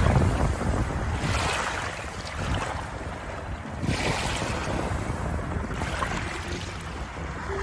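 Waves washing in: a steady rush of water that swells and eases again about every two to three seconds.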